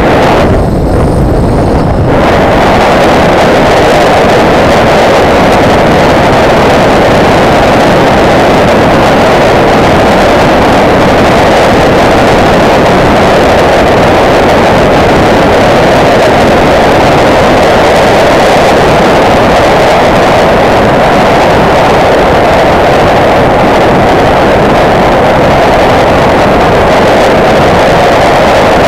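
Wind rushing hard over the microphone of a motorcycle moving at road speed, with no distinct engine note standing out. The rush turns brighter about two seconds in and then holds steady.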